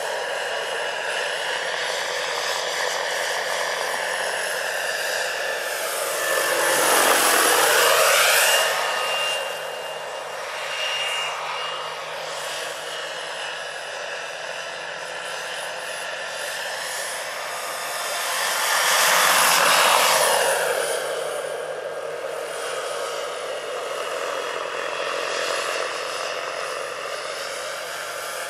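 Jakadofsky Pro 6000 turbine and rotor of a large-scale RC Eurocopter EC-120 model helicopter in flight, a steady turbine whine with rotor noise. It swells loud twice, about seven and about nineteen seconds in, as the helicopter passes close, its pitch falling as it goes by.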